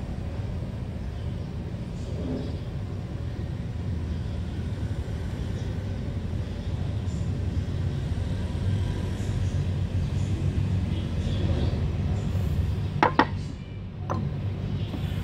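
Steady low background rumble with faint handling noise as car parts are turned over in the hands. Near the end come two sharp clicks as a part is put down on the wooden board.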